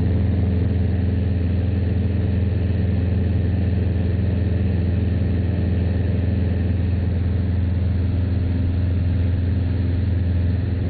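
Robin DR400 light aircraft's piston engine and propeller droning steadily in flight, heard from inside the cockpit.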